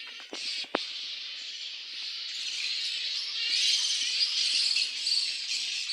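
A roosting colony of flying foxes screeching and squabbling: many overlapping high calls, growing louder a few seconds in. A single sharp click sounds just under a second in.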